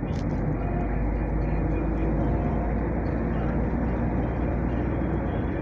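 Car driving on an open road, heard from inside the cabin: a steady low rumble of engine and tyres on asphalt.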